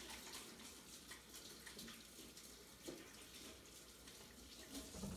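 Kitchen tap running faintly while hands are washed and rubbed under the stream, rinsing off bread dough.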